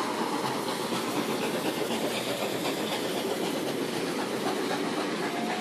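New South Wales 4-6-0 steam locomotive passing close at speed with its train: a loud, steady rush of exhaust and steam mixed with wheel noise on the rails.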